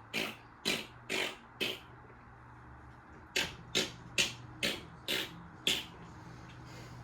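A wrench working a washing machine's transit bolt loose with short rasping strokes, about two a second: four strokes, a pause, then six more, over a steady low hum.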